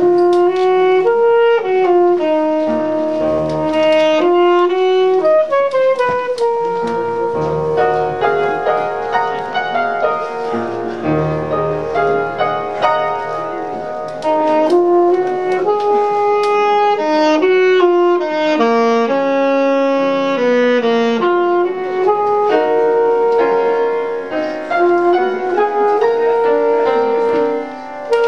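Saxophone and piano playing live together: a melody of held notes on the saxophone over piano chords.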